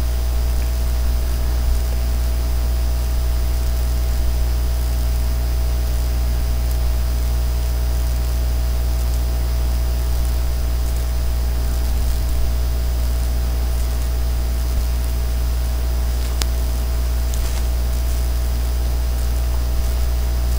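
Steady low electrical hum with a thin constant high whine and faint hiss, with a faint tick about 16 seconds in.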